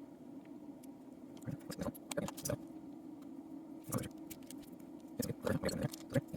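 Small metal lock parts clicking and tapping while the pins and springs of an Abus 72/40 padlock are fitted back in by hand. The irregular clicks come in clusters, about two seconds in and again around five to six seconds in.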